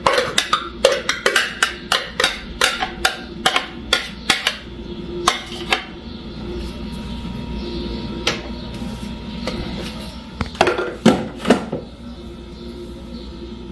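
Kitchen utensil knocking against a bowl as chopped cooked chicken is scooped onto a kitchen scale: a quick run of sharp knocks, about three a second, through the first half, then a few more knocks later.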